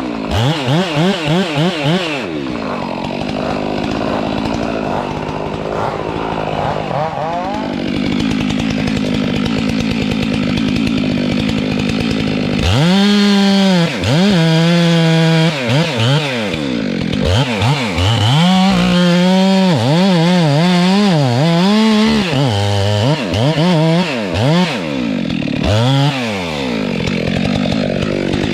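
Stihl MS462 chainsaw, a two-stroke, revving in quick blips, then running lower and rougher for about ten seconds as it works through the kapok wood. From about halfway it revs high, with its pitch dipping and recovering again and again as the chain bites and is eased off.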